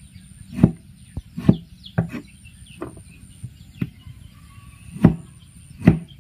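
Large kitchen knife slicing through tomatoes, each cut ending in a knock on the wooden cutting board, about eight knocks at an uneven pace.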